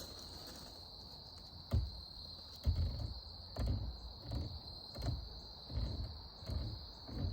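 Crickets trilling steadily with a high, even drone. From about two seconds in, a run of low thuds at a walking pace, roughly one every two-thirds of a second.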